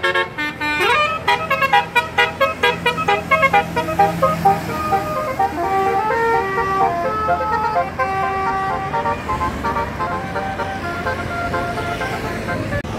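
Bus 'telolet' multi-tone musical air horn (basuri) playing a tune: a quick run of short notes, then longer held notes, over the low hum of the engine.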